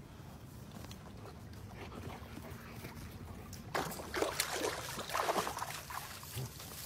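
German Shepherd dog barking, a quick run of several barks lasting about two seconds, starting a little over halfway through.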